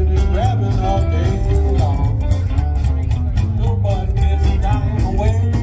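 Live rockabilly band playing through a PA: electric guitar, acoustic guitar, upright bass and drums, with a steady beat.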